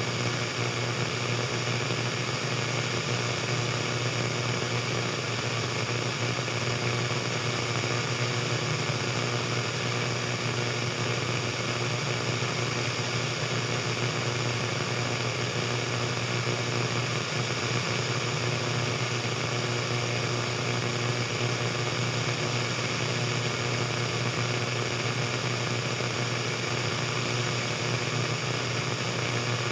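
Radio static: a steady hiss with a low hum beneath it.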